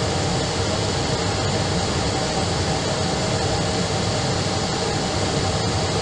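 Airbus airliner's jet engines running steadily at idle, heard from the cockpit as an even hum and hiss while the aircraft holds on the runway.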